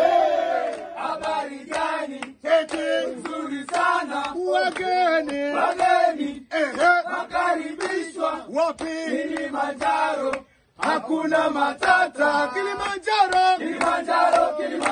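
A group of voices singing a chant together with hand clapping, cutting out for a moment about ten seconds in.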